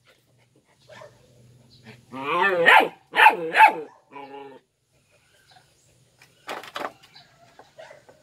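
Belgian Malinois puppy barking at a toy it is jumping for: a drawn-out, wavering bark about two seconds in, two quick barks just after, and a fainter one after that. Near seven seconds there are two sharp knocks.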